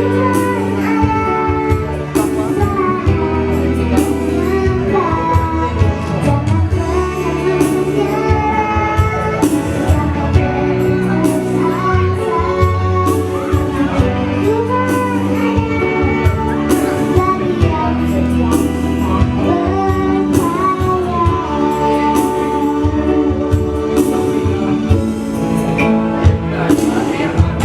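A woman singing a melody with a wavering, ornamented voice over instrumental accompaniment of held chords and a steady percussive beat.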